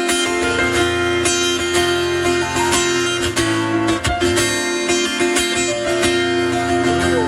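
Acoustic guitar strummed in a steady rhythm, an instrumental passage of a live pop song with no singing.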